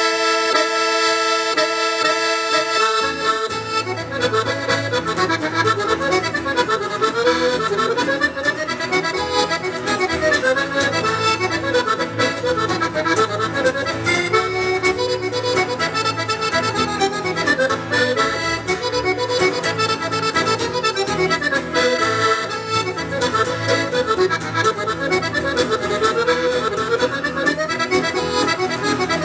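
Accordion playing a tune: a held chord to open, then the melody gets moving with a steady bass line coming in about three seconds in.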